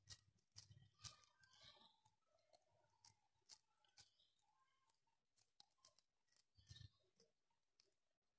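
Near silence: faint, scattered soft clicks and squishes of hands pressing sticky minced beef around a pencil, mostly in the first couple of seconds.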